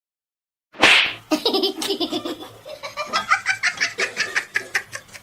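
A person laughing hard in quick, repeated bursts, starting abruptly about a second in after silence.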